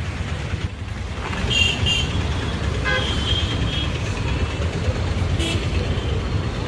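Street traffic rumbling steadily, with short horn toots: two quick ones about a second and a half in, a longer one around three seconds, and another brief one later.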